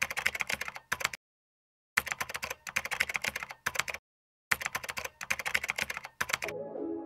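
Typing sound effect: rapid keyboard key clicks in three bursts with dead silence between them. Music starts near the end.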